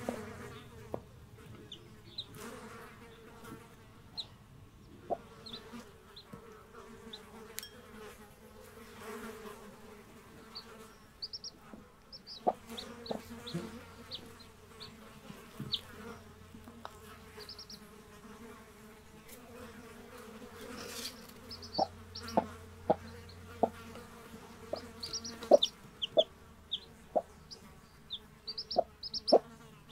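Two-day-old chicks peeping in many short high chirps, a Brahma hen clucking low, and insects buzzing steadily. Sharp taps are scattered throughout.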